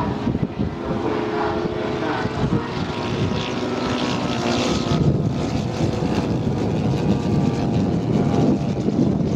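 Propeller engines of two large-scale radio-controlled WWII fighter models in flight, a steady drone whose pitch slides up and down as the aircraft pass and turn.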